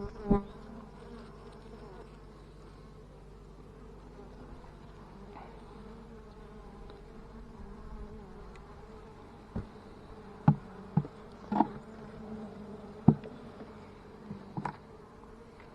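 Italian honey bees buzzing steadily as a hive is opened for inspection. Several short sharp knocks come just after the start and then in a cluster in the second half, louder than the buzzing.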